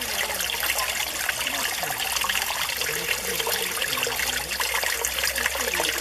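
Mountain stream water flowing steadily, with a gurgling burble under the rush.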